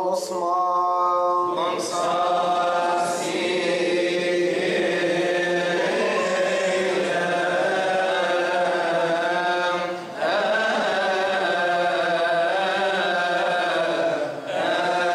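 A man chanting a Gospel reading in a slow liturgical chant of long held notes, pausing briefly for breath a few times.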